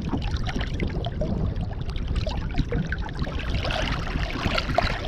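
River water splashing and sloshing around a surubí catfish held by hand at the surface as it is released. The splashing grows busier from about three and a half seconds in.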